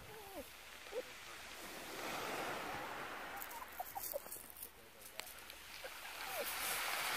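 Small waves washing onto a shingle beach, a faint hiss that swells about two seconds in, with a few short, faint pitched calls over it.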